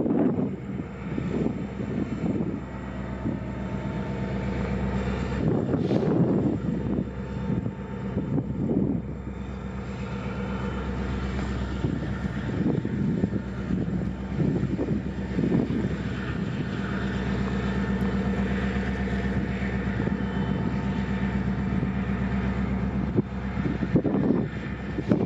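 Diesel locomotive engines running with a steady low hum. Gusts of wind buffet the microphone in the first half and again near the end.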